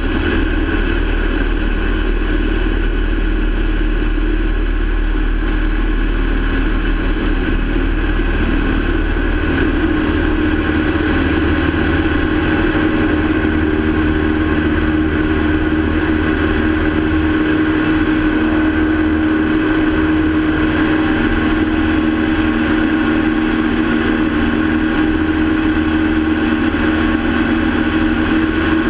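Small single-engine propeller airplane's engine and propeller running at takeoff power through the takeoff roll and climb-out, a loud steady drone whose tone shifts about ten seconds in.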